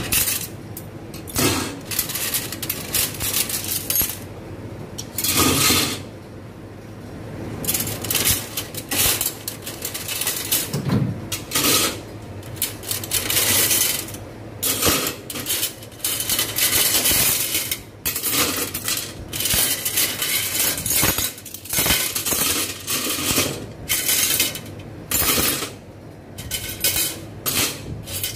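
Metal spoons and forks clinking and clattering against one another as they are washed, in many quick, irregular strikes.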